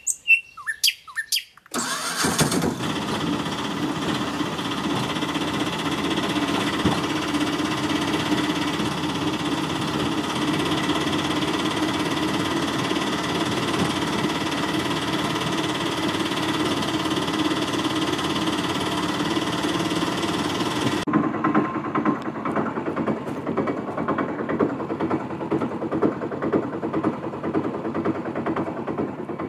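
Motor engine running steadily, starting about two seconds in after a few short chirps. Partway through, about two-thirds of the way, it suddenly turns duller.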